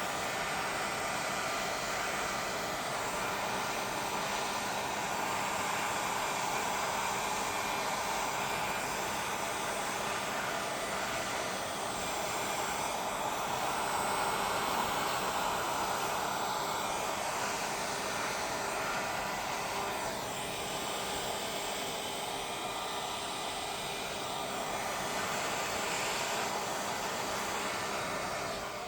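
Electric hot-air blower running steadily, blowing warm air over thin white epoxy to push it into wave lacing on the resin. It drops away at the very end.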